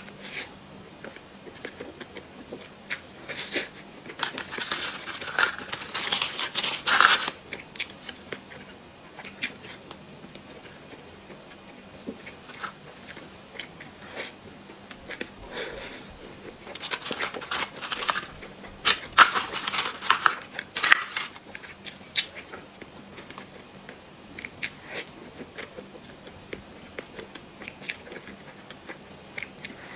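Close-miked bites, chewing and wet mouth sounds of someone eating a soft cream-filled snow-skin mochi (xuemeiniang), with two louder spells of chewing, one a few seconds in and another past the middle.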